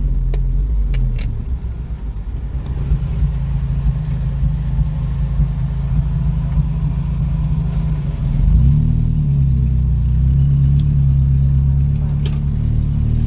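An engine running steadily, with its pitch rising a little about eight and a half seconds in and settling again; a few faint clicks over it.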